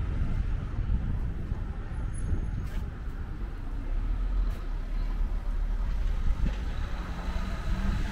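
Ambience of a city street: a steady low rumble of traffic and street noise.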